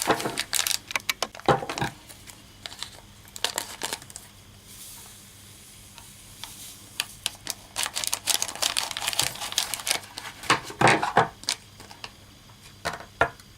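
Litter sand being poured and shaken into a toy cat's litter box: crinkling and many small clicks and rustles, with a soft hiss around the middle.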